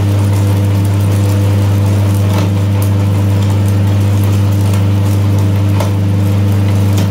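Electric meat grinder's motor running steadily with a deep, even hum, with a few faint clicks from inside the grinder.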